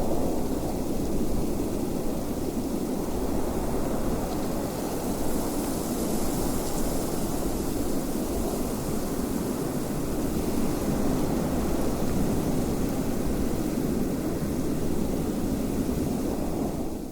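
Steady wind blowing, a low, even rushing sound that starts to fade out right at the end.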